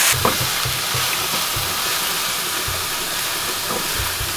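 Sliced mushrooms sizzling in a frying pan: a steady hiss, with a few soft low knocks scattered through it.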